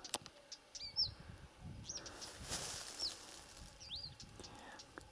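A small songbird calling: short, high, swooping chirps repeated every second or so. About two seconds in there is a brief rustle of handling.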